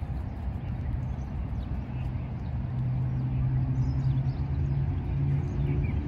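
Road traffic rumble with a low engine drone that grows louder in the second half, as of a heavy vehicle passing, with faint scattered bird chirps over it.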